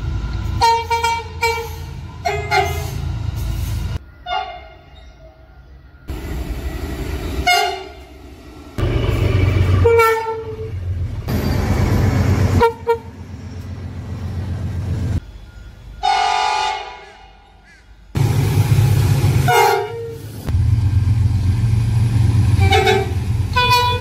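Horns of 2800 class diesel locomotives sounding a string of short toots, across several clips cut together. Beneath the toots, the locomotives' engines rumble deeply as they pass.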